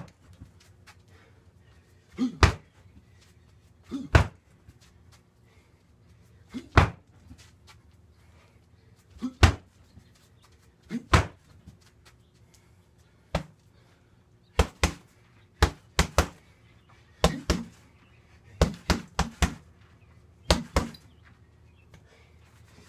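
Knees and shin kicks landing on a free-standing heavy bag, a sharp hit or a quick double hit every second or two, coming closer together in the second half.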